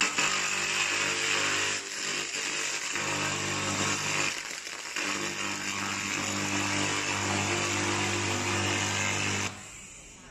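3000 W handheld laser cleaning gun stripping hard paint from steel: a loud buzzing hiss over a steady hum. It cuts out briefly about two seconds in and again near the middle, then stops near the end.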